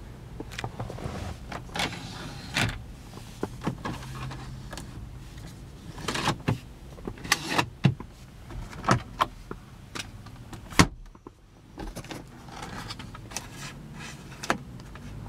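Repeated clicks and knocks of a BMW 3 Series coupe's plastic interior trim being handled: dashboard and console compartment lids and the sun visor's vanity mirror cover opened and closed, the sharpest knock a little before the middle, over a low steady hum.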